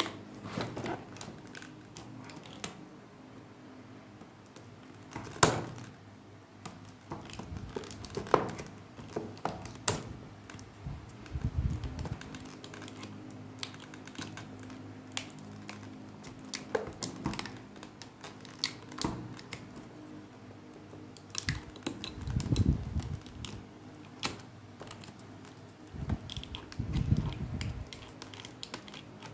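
Hard clear plastic blister packaging being squeezed and worked open by hand: irregular sharp clicks and crackles of the plastic, with a few dull bumps.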